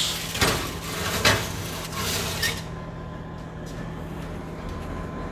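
Foil-lined baking pan being slid onto a metal oven rack: a few knocks and scrapes of metal in the first second and a half, then a steady low hum.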